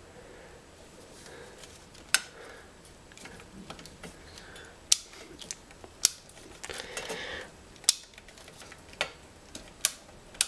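Hand crimping pliers squeezing a copper splice sleeve over bundled wires: a series of sharp metallic clicks a second or two apart, with a rustle of handling around the middle.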